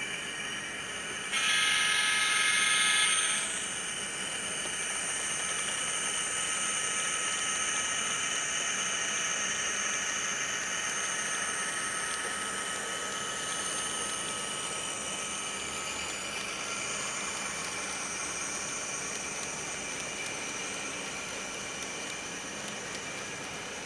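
Sound decoder in a Kato N-scale Amtrak P42 model locomotive sounding a diesel horn chord for about two seconds, which starts and stops sharply. After that, the decoder's diesel engine sound runs steadily from its small speaker and slowly fades as the train draws away.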